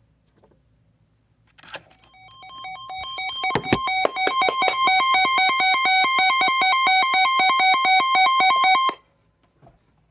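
Emergency Alert System alert tone announcing a severe thunderstorm warning: a loud electronic alarm that pulses rapidly and alternates between two pitches. It swells in about two seconds in and cuts off sharply about nine seconds in.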